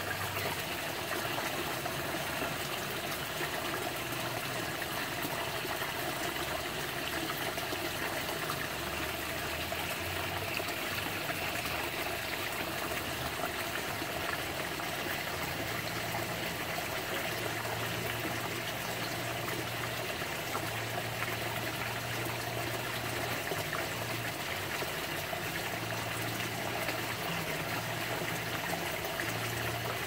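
Small garden-pond waterfall: water spilling steadily over a rock ledge and splashing into the pond below.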